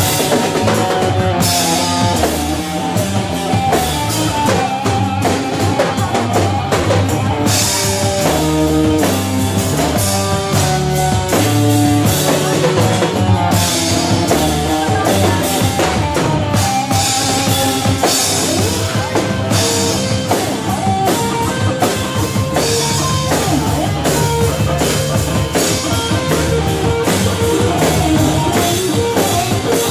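A live rock band playing loud, steady music on electric guitar, electric bass and a drum kit.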